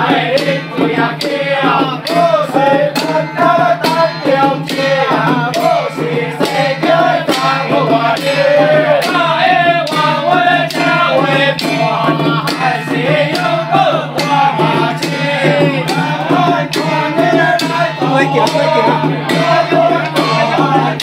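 Ritual chanting sung over steady percussion, struck about twice a second, with a steady low hum underneath.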